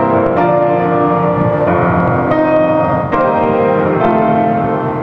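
Grand piano played solo, with full chords that change every second or so and ring on, the sustain pedal held down.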